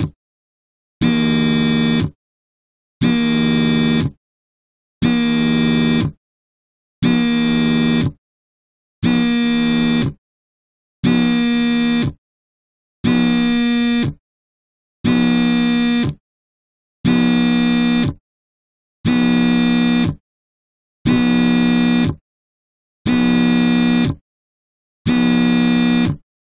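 Mobile phone vibrating on a table, buzzing with a rattle in bursts of about a second, one every two seconds, about thirteen times in a row: the repeating vibration pattern of an incoming call.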